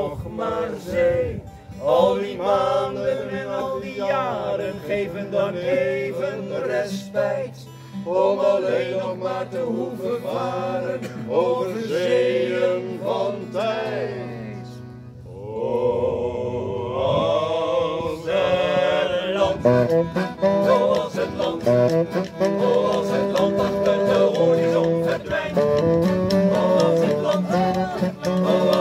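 Live folk song: several men singing together in unison over accordion, acoustic guitar and saxophone, with steady held bass notes under the voices. About halfway through the music dips briefly, then carries on.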